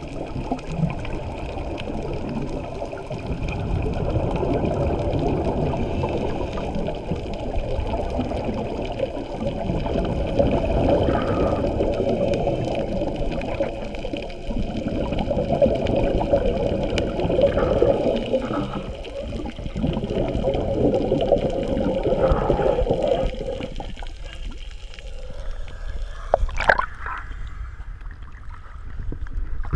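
Underwater recording of scuba divers' exhaled regulator bubbles, a dense gurgling rumble that swells every few seconds. About three-quarters of the way through it drops off as the camera rises toward the surface, and a couple of sharp clicks follow near the end.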